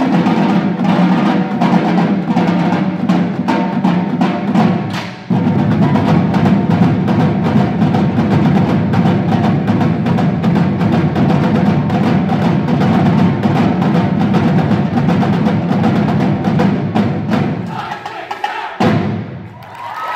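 Marching drumline of snare drums, tenor drums and bass drums playing a fast, dense percussion piece. The playing drops out about five seconds in and comes straight back in together, then dies away near the end with one last hit.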